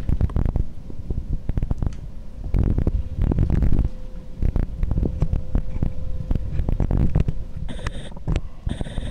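Low, continuous rumbling of a thunderstorm, rising and falling, with many sharp crackles through it. Near the end a short high tone sounds twice, about a second apart.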